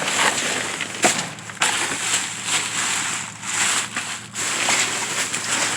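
Crunching and crackling of trash being rummaged through and moved in a dumpster, in several uneven bursts with short pauses between them.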